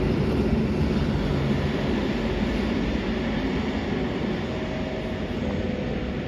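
EN57AL electric multiple unit running on the track: a steady rumble of wheels and running gear that slowly fades, with a faint steady tone coming in over the last two seconds or so.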